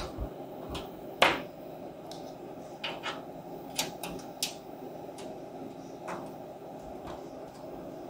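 Clicks and knocks of a USB plug and its cable being handled and pushed into a port on the back of a desktop PC's metal case. One sharp click about a second in is the loudest; a scatter of smaller ticks follows around three to four and a half seconds in, over a steady low background hum.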